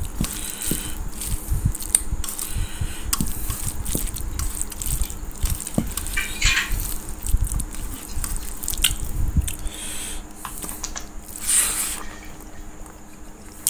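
Fingers mixing and squishing rice and curry on a steel plate: soft wet squelches with irregular small clicks and taps against the metal. About eleven seconds in there is a brief louder rustle, then close-up mouth sounds of eating.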